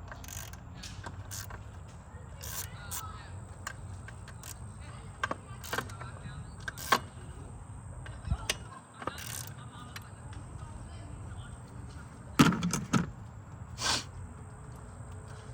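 Hand tools and metal engine parts clicking and knocking during work in a car's engine bay, irregular single clicks with a louder cluster of knocks near the end.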